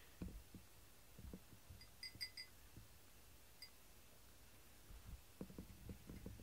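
Faint sounds of a cat eating from a ceramic bowl: soft, scattered low taps of chewing and bowl contact, coming closer together near the end. About two seconds in there are four quick tiny high-pitched rings, like a small bell, and one more a little later.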